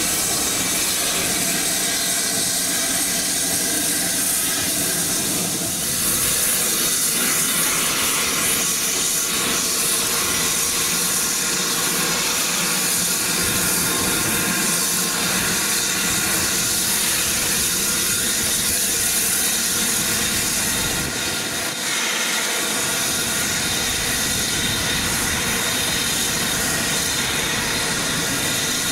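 Two double-headed steam Pacifics, BR Standard Class 7 No. 70000 Britannia leading rebuilt Bulleid West Country No. 34046 Braunton, working a passenger train as they draw closer. There is a steady, loud hiss of exhaust and escaping steam.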